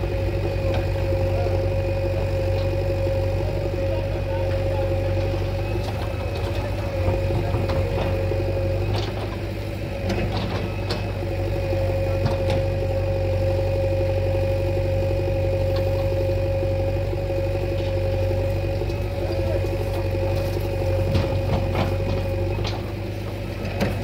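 Diesel engine idling steadily, with a constant whine above the low engine sound and a few light clicks.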